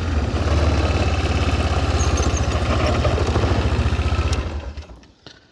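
Electric grease gun's motor running with a fast, even pulsing of its pump, then winding down about four and a half seconds in.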